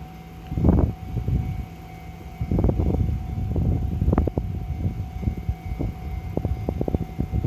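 A train rumbling past over the rails, with irregular clattering of wheels on track joints.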